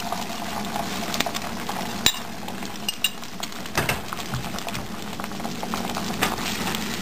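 Beaten egg frying in hot oil in a pan, a steady sizzle, with a utensil scraping the egg and clicking against the pan now and then.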